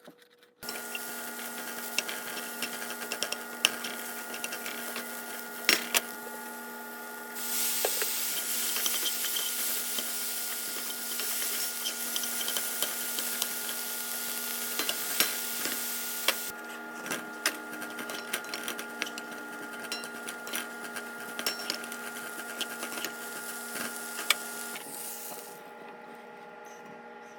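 Riced cauliflower being stir-fried in a pan: a spatula scrapes and taps against the pan, and the food sizzles over a steady electrical hum. The sizzle grows louder about a third of the way in and eases off just past halfway.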